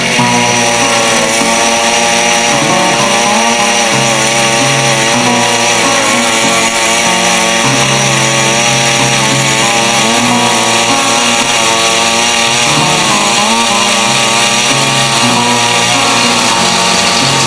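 Power ice auger's small engine running steadily under load, drilling a hole through lake ice.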